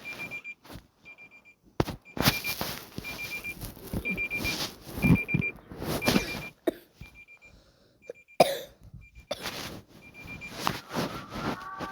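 Electronic alarm beeping: a short, high-pitched beep repeats about once a second, with loud bursts of noise over it. Near the end a steady sound made of several held tones begins.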